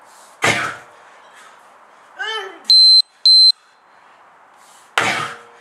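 Two strikes of a 34 kg sledgehammer slamming down onto a rubber tyre, about four and a half seconds apart. Between them, two short, loud, high-pitched electronic beeps in quick succession, just after a brief voice-like call that falls in pitch.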